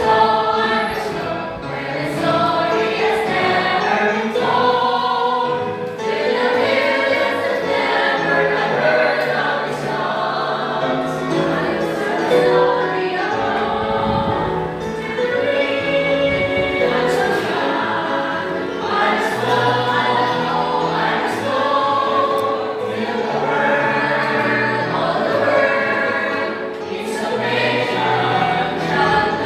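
Choral music: a choir singing a gospel-style piece.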